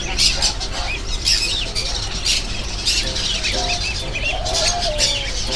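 Many small caged birds chirping and squawking: quick, high chirps overlapping throughout, with a steady low hum underneath.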